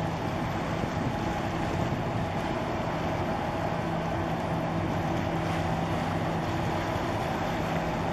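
Boat engine running steadily with a constant hum, over the rush of water and wind on the microphone.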